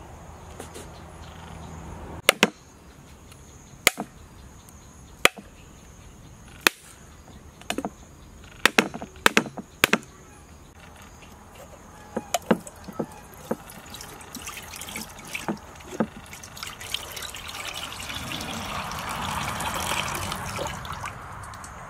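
Cleaver striking a whole mature coconut held in the hand: a series of sharp knocks, one every second or so, cracking the shell. In the last several seconds coconut water trickles and splashes into a metal bowl as it drains out.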